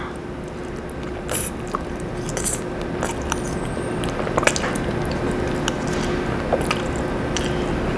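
Close-miked eating of spaghetti: noodles slurped in and chewed, with short wet mouth clicks and smacks scattered through, over a faint steady hum.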